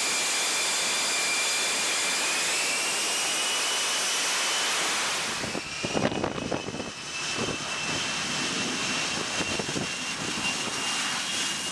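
F-35B Lightning II's F135 jet engine running at high power for a short takeoff: a steady roar with a high whine that slowly rises in pitch. About five and a half seconds in, the sound turns rougher and fluttering while the whine carries on.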